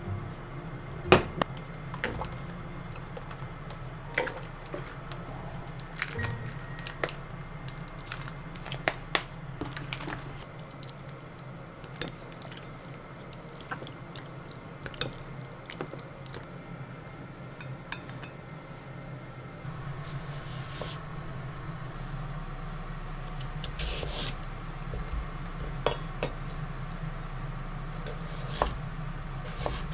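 Seasonings spooned into a ceramic bowl of sliced raw pork, the spoon clicking sharply against the bowl several times, then the meat mixed by hand with wet squishing. A knife cuts into a daikon radish on a wooden board near the end, over a steady low hum.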